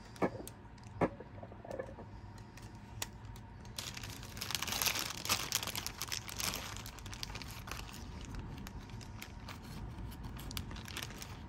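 A few light clicks as the old rubber drive belt is hooked off a portable cassette player's mechanism, then plastic bag crinkling and rustling from about four seconds in, loudest for a few seconds, as a bag of replacement belts is handled.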